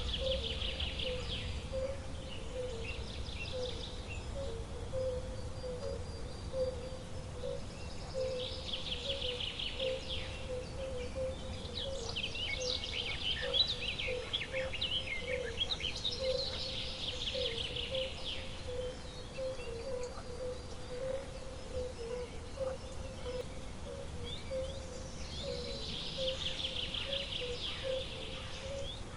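Outdoor nature ambience: a bird repeating a short, rapid trilled song about every eight seconds, with a run of scattered chirps in between. Underneath are a steady, lightly pulsing low call and a low background rumble.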